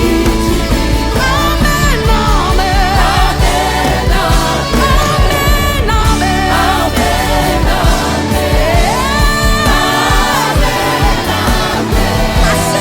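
Gospel song with singing, with backing voices and a steady beat.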